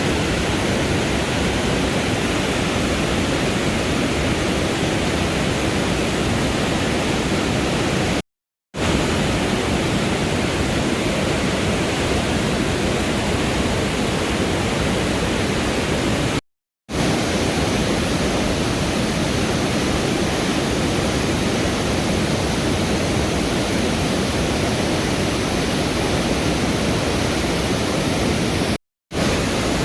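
Rushing mountain river water, a steady, even rush of white water broken by three brief total dropouts.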